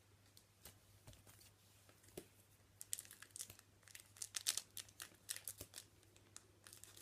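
Faint crinkling of a trading-card pack wrapper being opened and handled, in quick scattered crackles that come thickest from about three to six seconds in.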